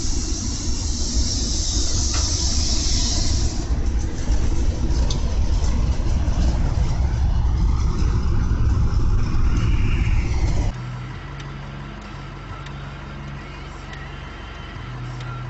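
Loud rumble and hiss of a railway snowplow passing close by while its blade pushes snow aside. About ten seconds in, this cuts off abruptly to a quieter, steady engine hum with a pulsing low tone.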